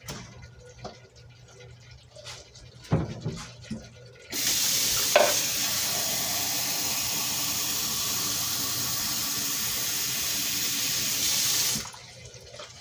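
A few light clicks and knocks, then a tap turned on, running water in a steady stream for about seven seconds before it is shut off abruptly, drawing water to add to the cooking pot.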